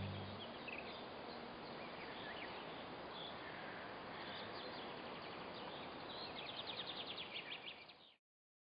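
Faint outdoor ambience: small birds chirping over a steady hiss, with a rapid trill near the end. The tail of the music fades out at the very start, and the sound cuts off abruptly about eight seconds in.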